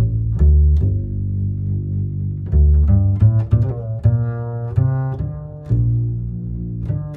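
Background music: a tune of low string notes, each starting sharply, the notes changing about twice a second.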